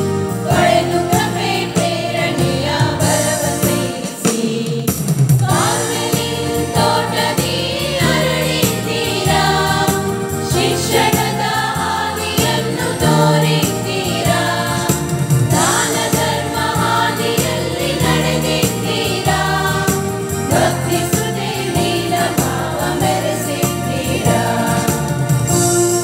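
A devotional song sung in Kannada by a group of voices over an instrumental backing.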